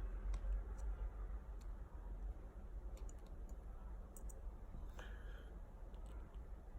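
Faint, irregular small clicks of a screwdriver turning out small screws in a lightsaber hilt, over a low steady hum.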